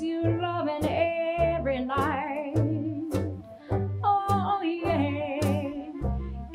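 Live traditional jazz band playing a swing tune: a woman singing with a wavering vibrato over upright bass notes about two a second, drum strokes and horns.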